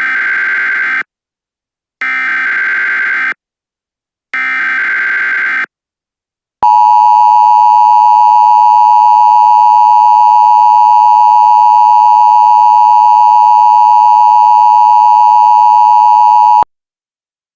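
Emergency Alert System tones: three one-second bursts of SAME digital header data, then the steady two-tone EAS attention signal for about ten seconds, loud, cutting off suddenly. Together they mark the start of a new alert message.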